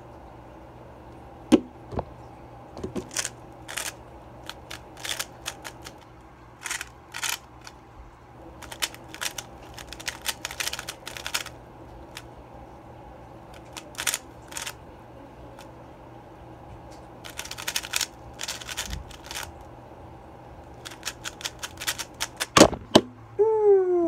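Plastic 3x3 speed cube being turned fast in a timed solve: rapid irregular clicking and clacking in quick runs of turns. Near the end, a couple of knocks as the cube is set down and the Speed Stacks timer is stopped, then a short falling "ohh" exclamation.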